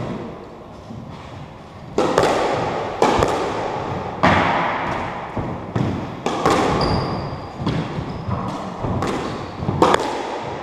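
Squash rally: sharp cracks of the ball off the racket and the front wall, roughly once a second from about two seconds in, each ringing on in the court's echo. Short high-pitched shoe squeaks on the wooden floor come now and then.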